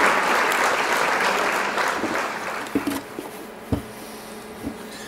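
Recorded applause that fades out over about three seconds, followed by a few light knocks as a figure skate boot is handled.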